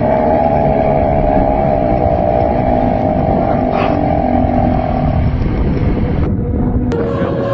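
A long, loud, wavering burp held for about five seconds over a noisy background, then breaking off.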